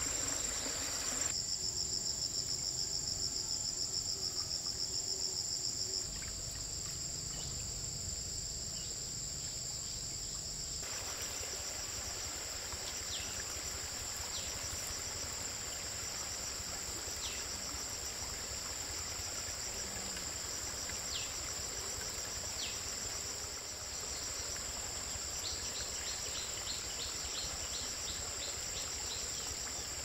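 A steady, high-pitched trilling from insects, with a faster pulsing trill over it for the first few seconds. Faint short high chirps come now and then in the second half.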